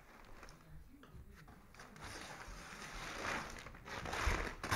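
Rustling and scraping of the toy's cardboard packaging being handled, louder in the second half, with a few dull knocks near the end.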